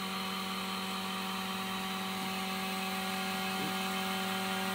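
Vacuum pump running steadily, holding vacuum on bagged carbon fibre foil skins during resin infusion: an even hum over a constant hiss.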